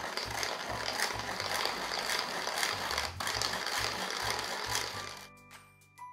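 Tin hand-crank flour sifter being cranked through powdered sugar: a rasping, ratcheting metal scratch with regular strokes. It fades out about five seconds in.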